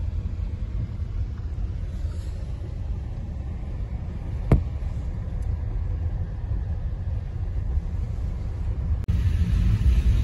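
Low steady rumble of a car driving, heard from inside the cabin, with one sharp click about four and a half seconds in.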